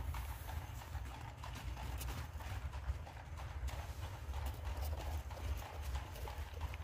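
Hooves of a horse pulling an Amish buggy clip-clopping along the road, a continuous run of hoof clops over a steady low rumble.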